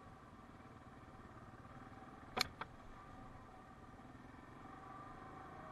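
A 2017 Yamaha Kodiak 700 ATV's single-cylinder engine running steadily and faintly as it rides a dirt trail. Two sharp knocks close together come about two and a half seconds in.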